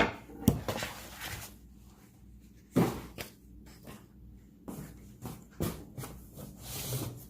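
Kitchenware and packaging being handled: a few sharp knocks as items are picked up and set down, the loudest about half a second in and just under three seconds in, with softer scraping and rustling between.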